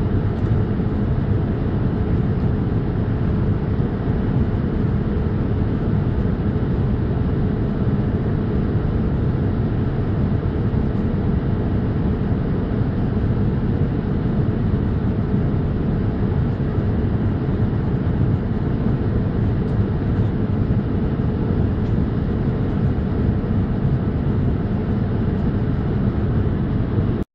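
Steady cabin noise inside a Boeing 787-8 airliner: a constant low rumble with a hiss of engines and airflow, unchanging throughout.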